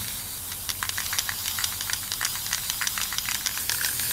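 Aerosol spray can of polyacrylic hissing as it sprays a coat over cracked solar-panel glass, the hiss dotted with irregular crackling clicks.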